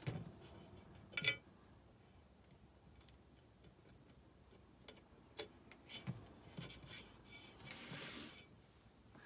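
Faint scattered clicks and taps of a craft knife working along the rim of a painted metal tray, trimming glued decoupage paper. The sharpest click comes about a second in, with a short scraping rustle near the end.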